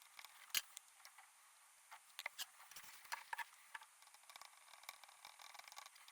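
Faint, scattered small clicks and taps of hand tools working on a circuit board while a replacement microcontroller is soldered in, the sharpest about half a second in and a cluster of them from about two to three and a half seconds in, over a faint hiss.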